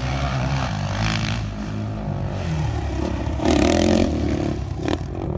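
Dirt bike engines running and revving, louder about three and a half seconds in.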